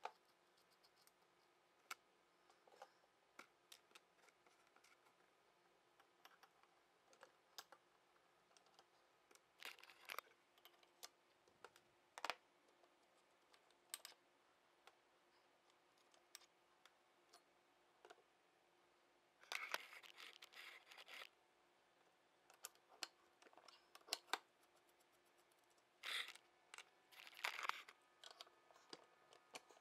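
Faint, scattered clicks and taps with three short scraping bursts about ten, twenty and twenty-seven seconds in: small tools and metal parts being handled while the jack is taken apart.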